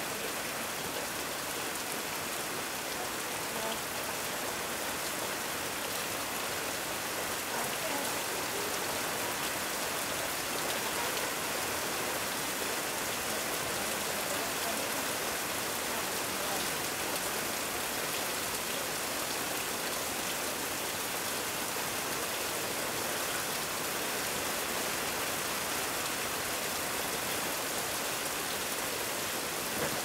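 Heavy rain falling steadily on corrugated metal roofing, an even rushing patter with no letup.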